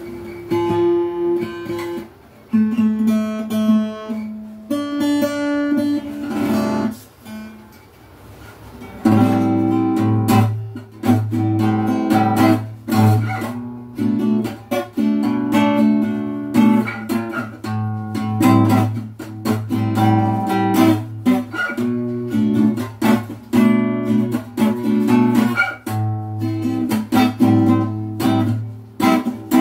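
Stock Donner acoustic cutaway guitar being played: a few single notes plucked and left to ring, a short quieter gap, then from about nine seconds in chords strummed in a steady rhythm.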